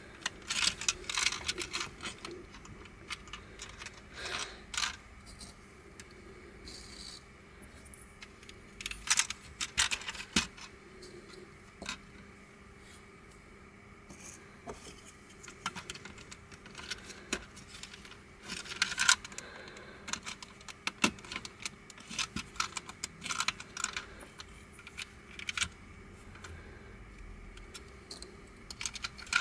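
Black plastic pieces of a Crazy Octahedron Plus twisty puzzle clicking and clattering as they are handled and fitted together by hand, in irregular clusters of sharp clicks with short pauses between.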